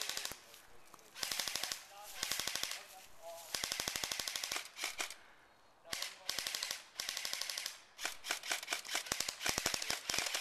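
Airsoft electric guns firing full-auto in repeated bursts: rapid sharp clacking shots at roughly fifteen to twenty a second, each burst lasting under a second to about two seconds.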